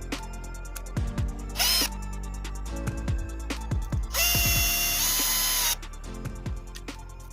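Electric drill whirring in a short burst just before two seconds in, then running for about a second and a half from about four seconds in, its pitch stepping up partway, used to sharpen a knife. Background music with a steady beat plays throughout.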